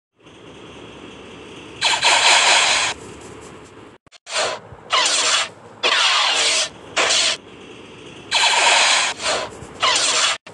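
Dubbed lightsaber sound effects: a steady electric hum broken by about seven loud bursts of swings and clashes. The longest bursts last about a second, each carrying sweeping rises and falls in pitch.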